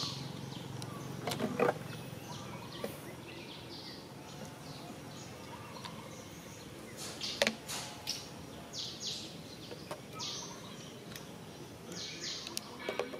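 Outdoor ambience with a few sharp clicks and knocks, and a run of short high chirps in the second half.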